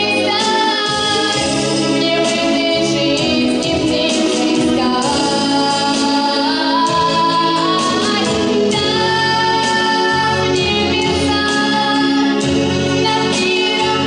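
A young girl's solo voice singing a melodic song into a handheld microphone over instrumental accompaniment, with long held notes.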